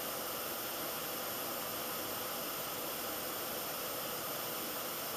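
Steady background hiss of room tone, unchanging and with no other sound.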